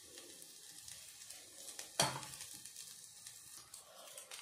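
Oil sizzling faintly with fine crackles as mung dal flour and colocasia leaf rolls shallow-fry in a lightly oiled hot pan, while more rolls are laid in. One sharp knock about two seconds in.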